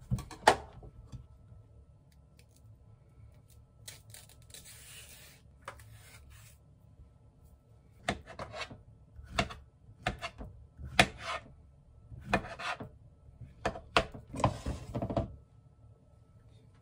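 Food-prep handling sounds: a strawberry set down with a knock in a ceramic dish just after the start, a brief rustle a few seconds in, then a banana peeled and its pieces handled into the dish, a run of short tearing, rubbing and tapping sounds in the second half.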